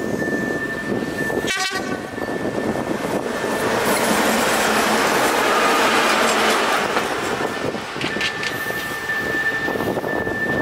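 A TEP70S diesel passenger locomotive approaches with its engine running. Over it, a level-crossing warning signal sounds a steady high tone, which drops out in the middle while a louder rushing noise swells for a few seconds.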